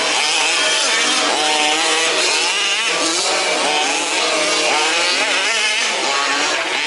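Several 1/5th scale RC off-road race cars running together, their small two-stroke petrol engines revving up and down as they accelerate and brake around the track, in a buzzing, overlapping drone.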